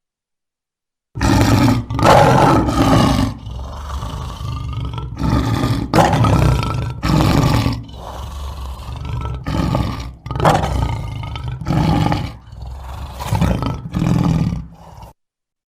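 A large animal roaring repeatedly: a series of loud, deep, rough roars with quieter stretches between them, starting about a second in and cutting off abruptly about a second before the end.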